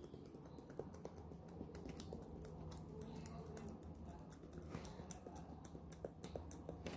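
Slime being mixed: faint, irregular sticky clicks and ticks as the glue mixture is worked while it sets with activator.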